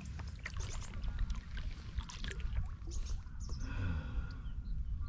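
Kayak paddle blades dipping and pulling through calm water, with splashes and drips. A steady low rumble runs underneath.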